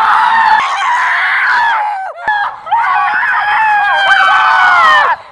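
Children screaming in two long, high-pitched shrieks, the second ending in a falling pitch near the end.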